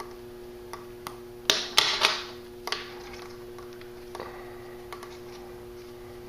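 550 paracord being pulled back through a woven bracelet with forceps: a few light clicks, then a cluster of short, sharp rasps of cord sliding through the weave about a second and a half in, and one more shortly after.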